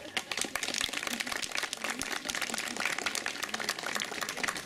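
A crowd clapping: many hands applauding at once in a dense, irregular patter that starts suddenly.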